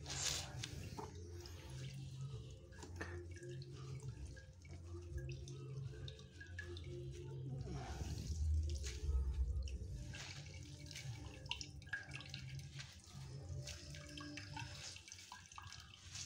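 Water dripping and trickling from handfuls of boiled cassava leaves as they are squeezed out by hand over a woven bamboo tray, in irregular drips and little runs.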